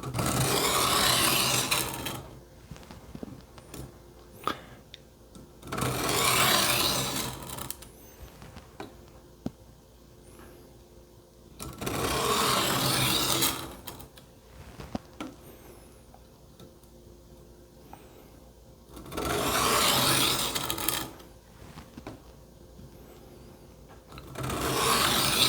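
Kitchen knife blade drawn slowly along a wet, coarse sharpening stone: about five long rasping strokes roughly six seconds apart, the last starting near the end, with quiet in between.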